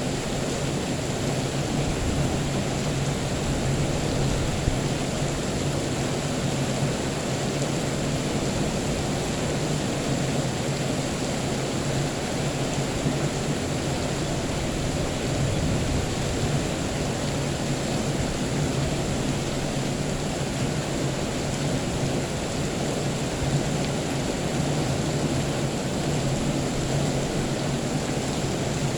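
Steady rain falling, an even hiss with a low steady rumble underneath.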